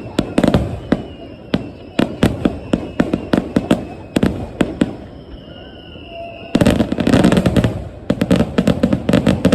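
Aerial fireworks bursting in quick succession: repeated sharp bangs with crackle. About two-thirds of the way in they thicken into a dense, continuous barrage.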